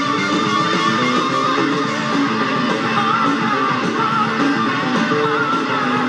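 Live hard rock recording playing: electric guitar lead with wavering, bent notes over bass and drums.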